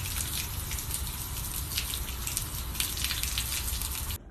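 Thin stream of water from a garden hose splashing steadily onto a concrete floor, with scattered sharper spatters; it cuts off suddenly near the end.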